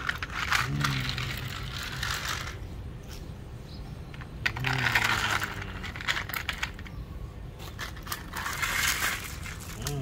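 Small gravel stones clattering and rattling in plastic toy dump-truck beds and a toy loader's bucket, with the toy trucks scraping over a gritty concrete floor, in three main bursts.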